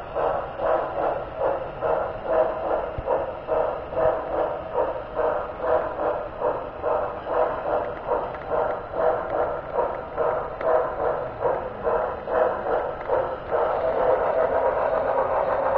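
HO scale model train running along the layout track, with a rhythmic pulsing of about two beats a second. Near the end the pulsing gives way to a steady running sound.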